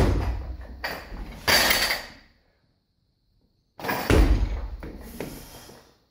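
Barbell clean: feet stamp down and the loaded bumper plates clatter as the bar is caught at the shoulders, followed about a second and a half later by a short rattle. A second heavy thud and clatter comes about four seconds in while the bar sits in the front rack.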